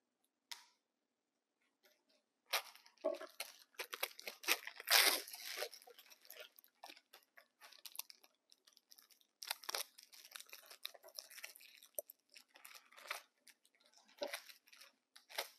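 Crinkling and tearing of the plastic wrapping of a disposable infusion set as it is opened and handled, starting about two and a half seconds in and loudest a couple of seconds later, then coming in sparser bursts.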